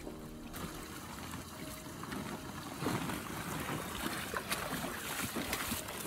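Shallow pond water sloshing and trickling as koi are handled in a plastic bag in a water-filled paddling pool, getting busier about three seconds in.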